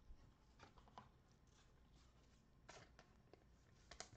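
Near silence: room tone with a few faint, short clicks and rustles of trading cards being handled.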